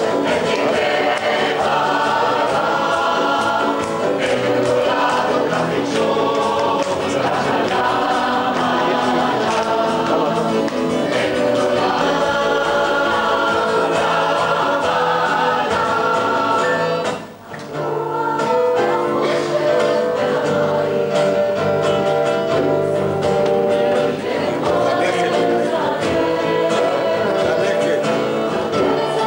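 A mixed choir of women and men singing, with a short break in the sound a little past halfway.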